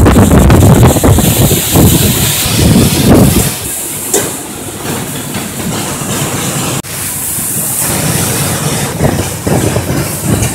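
Wind buffeting the microphone on a moving ferry's open deck, a heavy gusting rumble over a steady rush; about three and a half seconds in the rumble drops away, leaving a quieter steady hiss.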